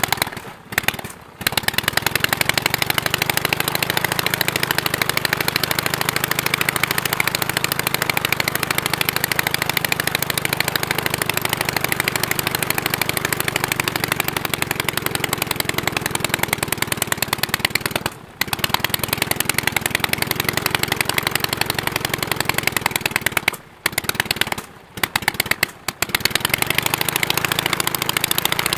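Bristol Cherub two-cylinder flat-twin aero engine running steadily on the ground, a rapid, even beat of firing pulses, with a few brief gaps in the sound.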